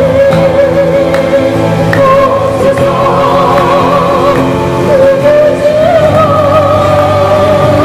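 Live Christian worship song: two acoustic guitars strummed under singing voices through microphones, the melody carried in long held notes.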